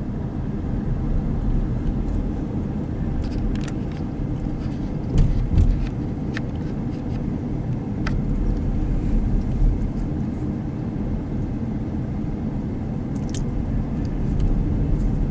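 Steady low rumble of engine and tyres heard inside a moving car's cabin, with a few faint ticks.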